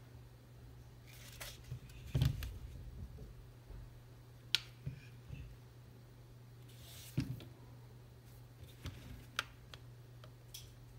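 Handling noise of two polymer-framed 9 mm pistols, a Tara TM-9 and a CZ P-10 F: scattered knocks, clicks and short scrapes as they are set down and shifted on the work surface, the loudest knock about two seconds in. A steady low hum runs underneath.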